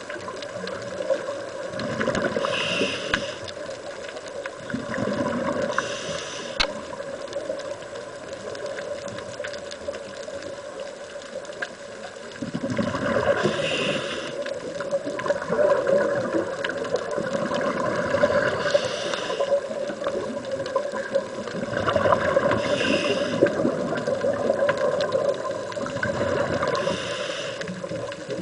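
Scuba diver breathing through a regulator, heard underwater: a breath every few seconds, each with hissing and gurgling exhaust bubbles, over a steady hum.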